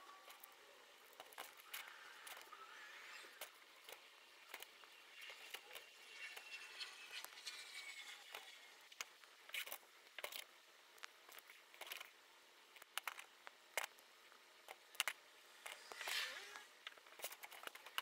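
Faint, scattered clicks and light rattling of small plastic Lego pieces being handled and pressed together during assembly.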